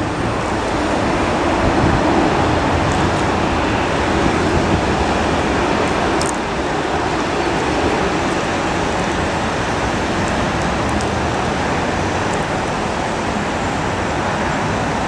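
A steady, even rushing noise with no clear tone in it.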